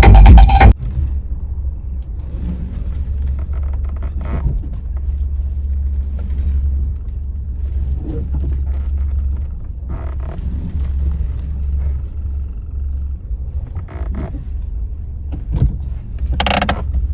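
Steady low rumble of a moving car, with faint scattered knocks and rattles. Music cuts off about a second in.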